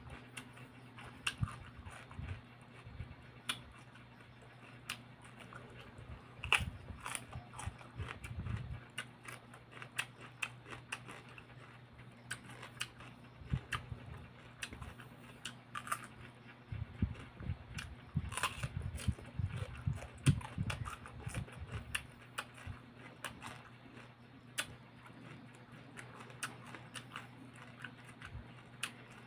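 Close-up mouth sounds of a person biting and chewing raw cucumber: irregular crisp crunches and wet clicks, with a faint steady low hum beneath.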